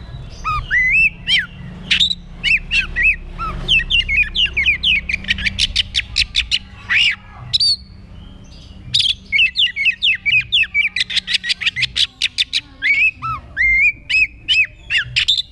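Oriental magpie-robin singing a loud, varied song of whistled glides and fast runs of repeated notes, in two long phrases with a pause of about a second near the middle.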